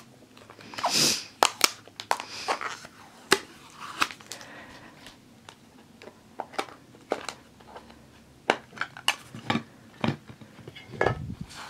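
Tape peeled off a small hard plastic trading-card case, then the case handled, with many light clicks and scrapes and a dull thump near the end as it is set down on the table.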